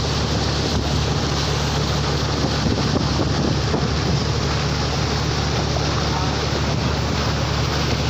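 A fishing boat's engine running steadily at sea, under the rush of wind on the microphone and water along the hull.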